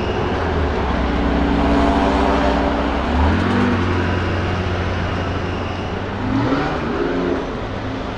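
Car engines running in slow street traffic, with a short rev rising in pitch about three seconds in and another about six and a half seconds in.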